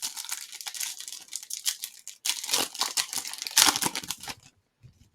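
Plastic-foil trading card pack wrapper being crinkled and torn open by hand: a rapid run of crackling rustles that stops about four and a half seconds in.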